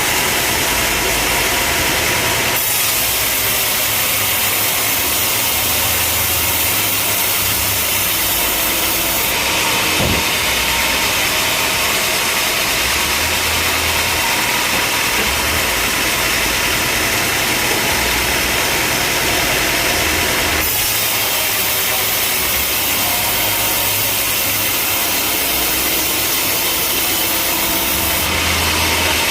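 Sawmill machinery running steadily: an engine-driven saw cutting timber. Its hissing cut grows louder or quieter several times as the cut changes.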